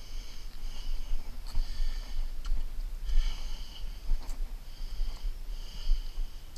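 A man breathing heavily through his nose close to the microphone while he works, about one breath a second, over a steady low rumble with a few faint clicks.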